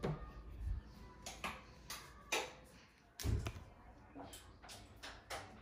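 A door knob being turned and a door opened, then a string of scattered knocks and taps from handling the door and moving about, the strongest a little past two seconds and around three seconds in.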